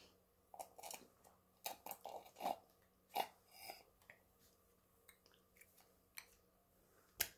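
Faint, irregular sips and slurps of smoothie drawn through straws, with short mouth noises in between.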